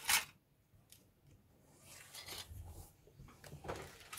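Plastic model kit sprues clattering and clicking as they are swept off a cutting mat and set down, the loudest clatter at the very start, followed by light, intermittent rustling and scraping of handled parts.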